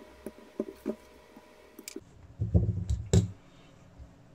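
Light clicks and taps of a folding knife and a small screwdriver being handled during disassembly, with a short cluster of louder dull knocks about two and a half seconds in as parts are set down or moved.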